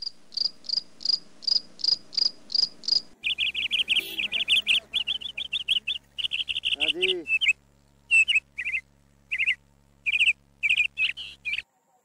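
Chirping animal calls: first an even series of high chirps about three a second, then faster, lower chirping trills, then spaced bursts of chirps. The sound cuts off abruptly near the end.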